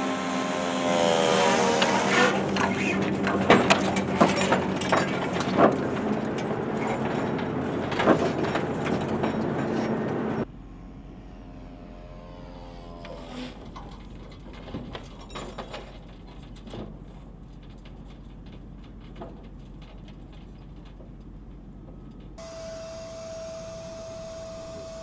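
ScanEagle drone's propeller engine buzzing past with a falling pitch, followed by a run of clicks and knocks. About ten seconds in the sound cuts to a much quieter background with a low hum and a brief falling tone, and near the end a steady high tone comes in.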